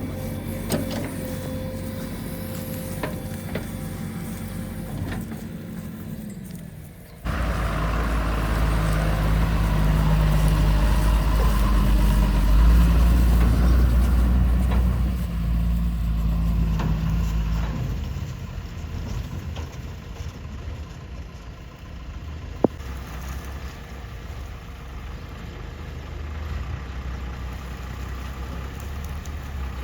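Diesel engine of a JCB 3DX backhoe loader at work. About seven seconds in it suddenly grows louder and deeper and revs hard for roughly ten seconds, then drops back toward idle. A single sharp click comes near the end.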